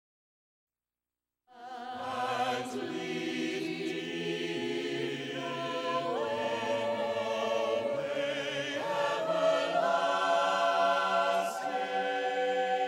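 Mixed vocal ensemble of men and women singing held chords in close harmony into handheld microphones, starting about a second and a half in after silence.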